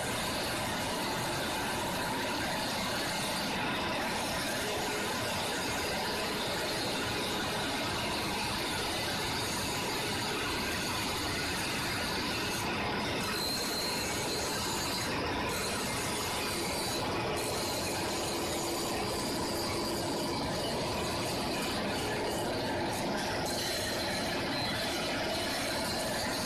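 Steel rolling mill machinery running: a steady, dense industrial din with faint high squealing tones that come and go.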